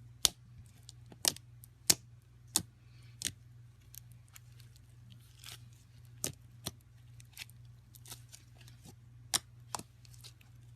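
A series of about a dozen sharp, irregular clicks and snaps, the loudest in the first two seconds and two more near the end, over a low steady hum.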